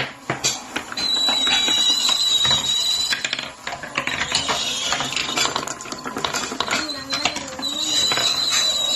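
Marbles rolling and clattering down a wooden marble run track: a dense run of quick clicks and knocks as they hit the wooden pieces. A thin, steady high tone comes and goes twice over the clatter.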